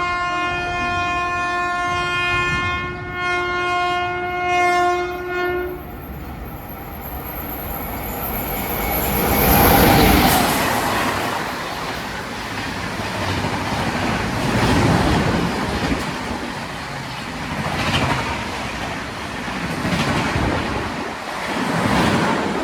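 Sampark Kranti Express locomotive horn held for about six seconds, then the train running past at speed, loudest about ten seconds in, followed by a steady rumble and clatter of the coaches' wheels on the rails that swells and fades every couple of seconds.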